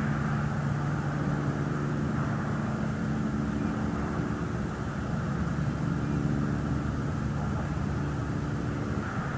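Steady drone of a distant engine, a low hum that is strongest for the first few seconds and then weakens, over constant outdoor background noise.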